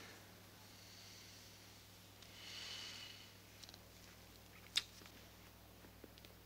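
Near silence: a faint steady hum, with a soft short hiss about two and a half seconds in and a single small click near five seconds.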